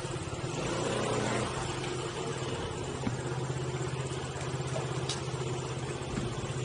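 Motorbike engine running steadily at low revs, with an even low pulsing note.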